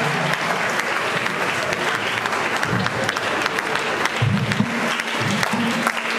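Audience applauding steadily at the end of a choir song, with a few low pitched tones sounding under the clapping.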